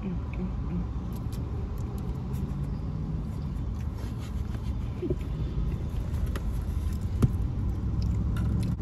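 Steady low rumble of a car's idling engine heard from inside the cabin, with a few faint clicks and one sharper tick about seven seconds in.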